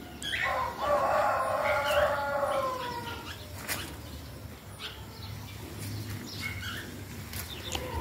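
A rooster crowing once: one long call of about three seconds that drops in pitch at its end.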